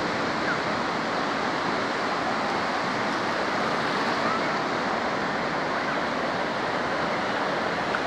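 Ocean surf on a sandy beach: breaking waves and shallow water washing over the sand, a steady, even rush.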